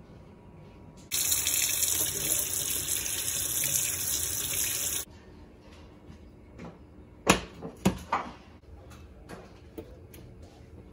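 Kitchen faucet running at full flow for about four seconds, starting and stopping abruptly. Then come a few sharp knocks as a frying pan is handled on a glass-top electric stove.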